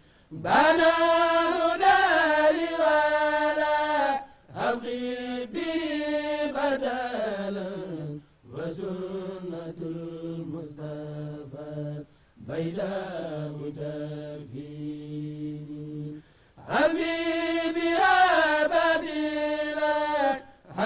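Men's voices chanting an Arabic devotional poem unaccompanied, in five long drawn-out phrases separated by short breaths; the phrases glide and fall in pitch toward their ends, and the first and last are the loudest.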